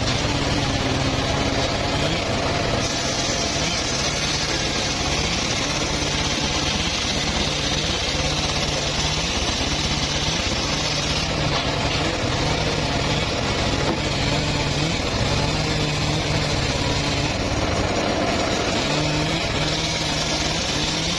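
Engine-driven wood saw running steadily while sawing mahogany. The engine drone continues throughout, and the cutting hiss grows louder for a stretch about three seconds in and again near the end.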